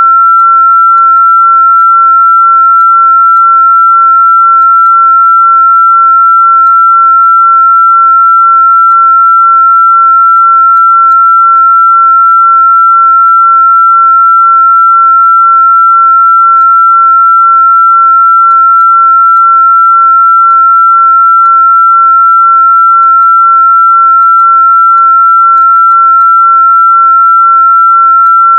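A single steady, high-pitched electronic pure tone held at one unchanging pitch, loud throughout.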